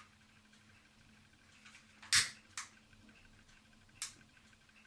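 Utility lighter's trigger clicking three times as it lights the candle burner of a tin pop-pop boat: two sharp clicks about two seconds in, the first the loudest, and one more near the end.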